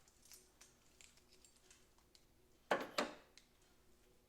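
2013 Honda Civic trunk latch actuator clunking twice in quick succession about two and three-quarter seconds in: it tries once to release but the trunk does not open. A few faint clicks come before it.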